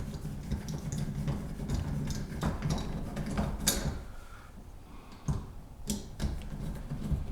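Scattered light clicks and taps of a Kwikset door knob's metal parts being handled and fitted to the door, with a few sharper clicks in the second half.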